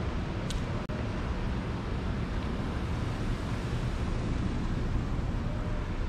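Steady outdoor street rumble: wind buffeting the action-camera microphone, mixed with car traffic driving past.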